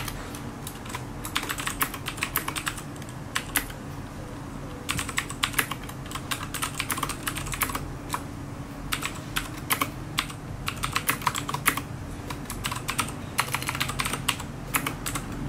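Keystrokes on a computer keyboard, typed in quick bursts with short pauses between them.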